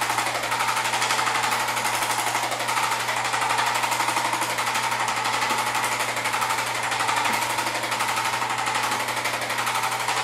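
Handheld electric chiropractic adjusting instrument (Arthrostim) tapping rapidly and steadily on the patient's spinal points, a continuous fast rattle of small impacts.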